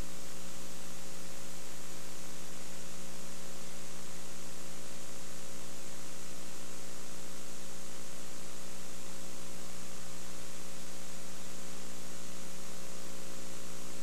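Steady electrical mains hum with hiss, held at a constant level, with no game sounds on the audio track.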